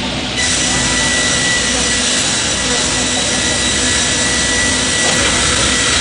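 Multi rip saw running: a steady, loud machine whine with a high steady tone, stepping up in loudness just after the start.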